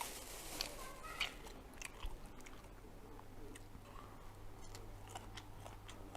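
A person chewing a mouthful of Thai grilled pork on a skewer (mu ping), with faint scattered mouth clicks and smacks.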